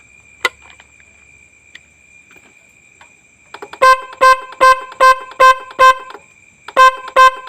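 Roots Windtone electric horn on a Hero Splendor BS6 motorcycle being beeped in short toots, about two and a half a second: six in a row, a short pause, then two more, each one steady, single-pitched note. The tone comes out sharp after its tuning screw has been loosened back from too tight, where it had sounded raspy. A faint click about half a second in.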